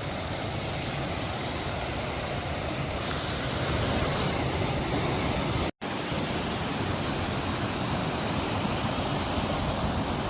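Waterfall rushing: a steady, even wash of falling water, broken by a brief dropout a little past halfway.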